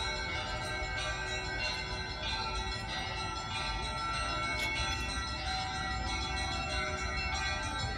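Orthodox church bells being rung together: many bells of different pitches sound at once, with fresh strikes every second or two over long, overlapping ringing tones.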